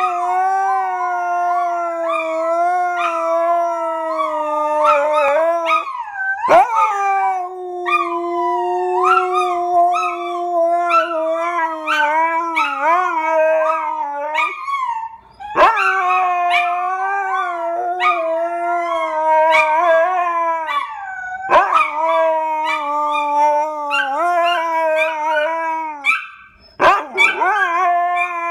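A husky and a pharaoh hound howling together: a long, steady howl held for many seconds at a time and broken by brief pauses about four times, with shorter rising cries over it.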